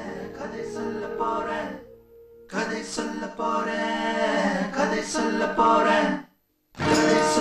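A group of men singing a folk song, a lead male voice loud in front with the others joining. Before it, the first two seconds hold steady, sustained music that fades out. The sound cuts out completely for a moment near the end, then the singing comes back.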